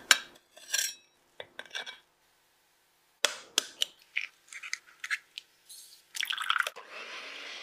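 Light clicks at the start, then an egg cracked with a few sharp taps against a glass bowl about three seconds in, its white dripping into the bowl. Sugar is then poured into the egg whites with a grainy patter, and a steady hiss begins near the end.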